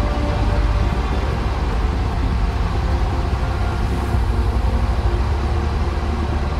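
Vans RV-9A's piston engine and propeller running steadily on final approach, a continuous drone with airflow noise, heard inside the cockpit.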